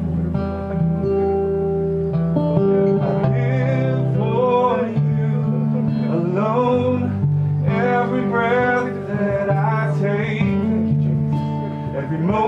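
Acoustic guitar strummed in slow chords while a man sings a worship song, in phrases with short gaps between the lines.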